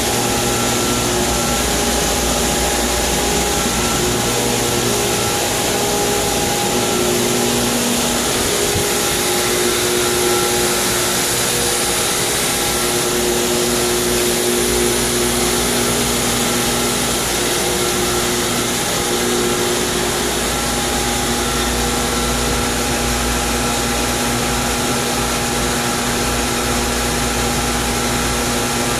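Pool pump running steadily: an even rushing noise with a constant multi-tone motor hum.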